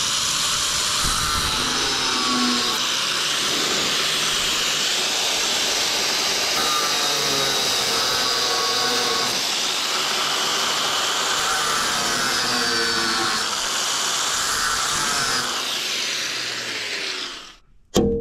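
Angle grinder with a large cutting disc cutting through a worn steel plow bolt: a continuous loud, hissing whine whose pitch wavers as the disc bites, cutting off shortly before the end.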